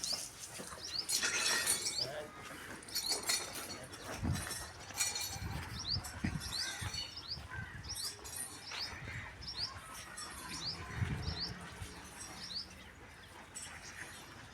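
Small birds chirping: many short, quick, upward-sweeping chirps repeated throughout, with scattered clicks and a few low thumps in the middle.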